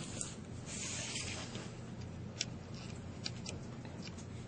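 Faint handling noise: a brief rustle about a second in, then several light, sharp clicks, over a steady low hum.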